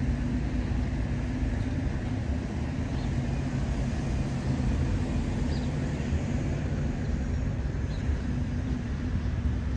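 Steady low outdoor rumble with a faint constant hum, and a few faint short high chirps scattered through it.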